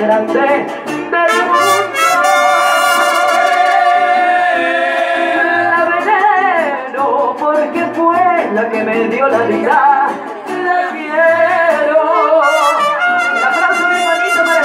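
Live mariachi band, trumpets and strummed guitars, playing while a woman sings into a microphone, with long held notes a couple of seconds in.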